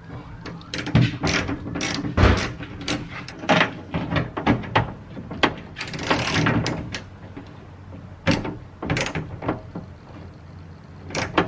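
Hand ratchet tightening the bolts of a new door handle, its pawl clicking in short irregular runs between strokes.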